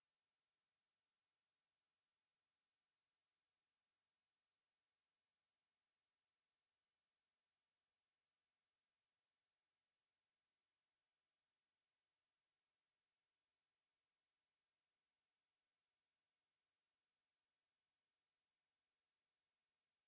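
A steady, high-pitched pure sine tone at 11608 Hz, held unbroken at a constant level: a speaker test tone.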